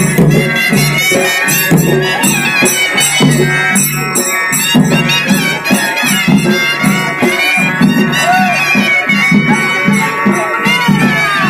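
Maharashtrian Dhangar folk dance music: a reedy double-reed pipe of the shehnai type plays a winding melody over a driving dhol drum beat and clashing cymbals.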